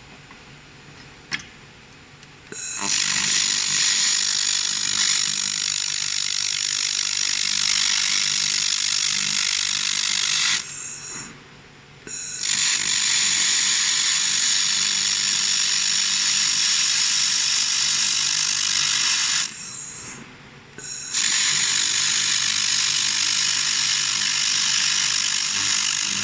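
UMW 3 kW handheld fiber laser welder running on carbon steel in three passes of about eight seconds each, a loud steady hiss with short breaks between passes. A single sharp click comes just over a second in.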